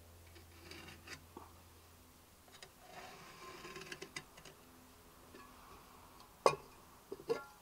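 A pen scratching and rubbing on a wooden board in short strokes as it is drawn around a metal mess tin. About six and a half seconds in comes one sharp knock, then a few smaller knocks, as the tin is lifted and set down on the wood.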